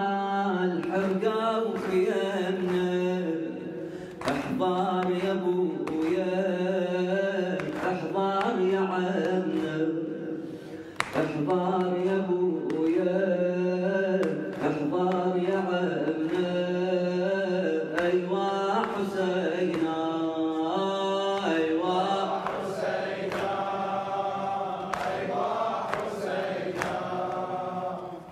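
A chorus of men chanting a Shia Muharram mourning elegy (latmiya) for Imam Husayn, with sharp beats about once a second under the voices.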